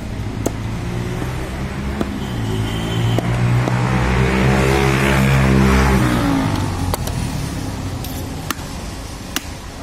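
A motor vehicle's engine passing close by: it grows louder to a peak about five seconds in, then fades as its pitch drops. A few sharp knocks of a blade on a wooden chopping block sound over it.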